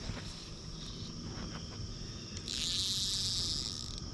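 Steady high-pitched drone of crickets and other insects singing. About two and a half seconds in, a louder high hissing buzz rises over it for about a second and a half, then drops away.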